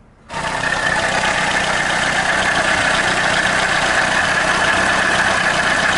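VAZ 2110-family four-cylinder engine running at idle, starting abruptly a moment in and then holding steady, with a steady high whine over the engine note. That whine is the hum blamed on a failing timing-belt tensioner bearing.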